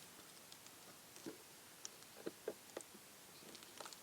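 Near silence broken by about half a dozen faint, scattered small clicks and taps from hands wrapping tape around a small LED bulb.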